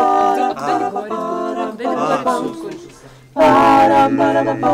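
A cappella vocal group singing: a short sung phrase of held notes fades out, then about three and a half seconds in several voices come in together on a full chord over a steady, deep sung bass note.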